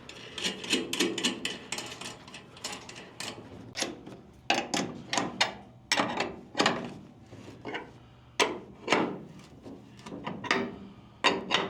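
Ratchet wrench clicking as a new chain tensioner is tightened: rapid clicking for the first few seconds, then a run of separate sharp knocks and strokes.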